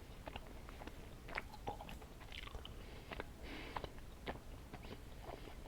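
Close-up mouth sounds of someone chewing candy: faint, irregular wet clicks and smacks.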